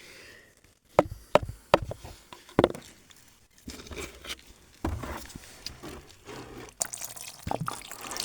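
Small gold nuggets and gravel knocking in a gold pan: several sharp clunks in the first three seconds. Then muddy water sloshing as the panning goes on.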